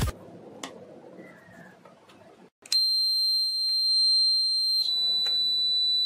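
Homemade magnet-triggered door alarm's buzzer sounding a steady, high-pitched continuous beep, starting about two and a half seconds in and holding for over three seconds, with a slight drop in pitch partway. This shows that the alarm circuit works.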